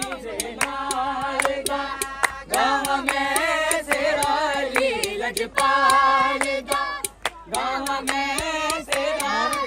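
A group of voices singing together, with steady rhythmic hand clapping keeping time.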